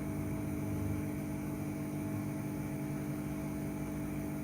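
Steady hum with a few fixed tones, unchanging throughout, from a Quick 850 hot air rework station running with its air pump and heater on.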